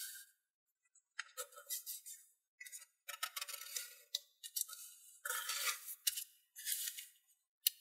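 A sheet of origami paper handled and creased by hand: irregular bursts of paper rustling and scraping as fingers slide along and press the folds, with short silent gaps between.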